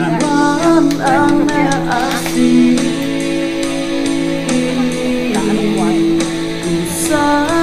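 Background song: a sung melody over guitar accompaniment, the voice dropping out for a few seconds in the middle while the instruments carry on.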